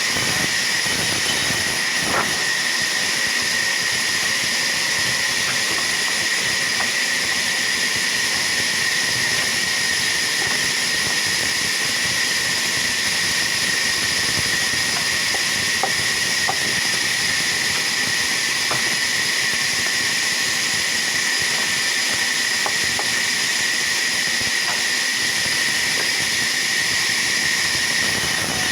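Sawmill saw running steadily through wood: a continuous loud hiss with a high whine over it and occasional faint knocks.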